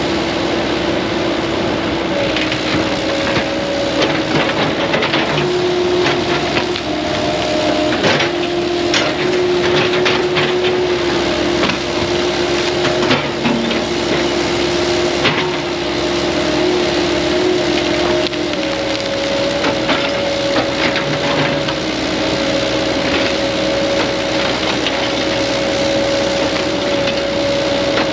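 Heavy diesel land-clearing machine running steadily under load, its engine tone shifting slightly a few times. Over it, wood cracks and snaps repeatedly as brush and trees are broken.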